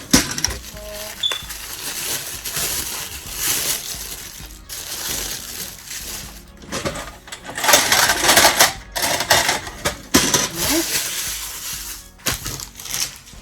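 Small metal rings jingling and clicking against each other as they are handled and sorted, with the rustle of their packaging, over background music.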